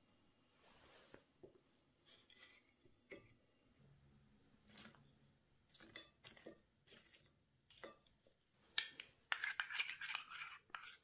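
Kitchen handling sounds: scattered light taps and clicks of dishes and utensils, then a louder scratchy crackle lasting about two seconds near the end.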